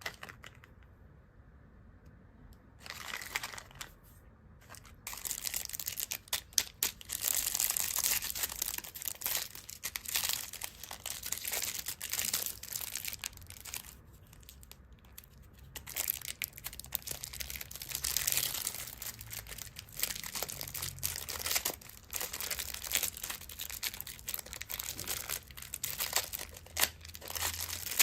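Candy wrappers crinkling and tearing as sweets are unwrapped, in dense rapid crackles that start about three seconds in and thin out briefly around the middle.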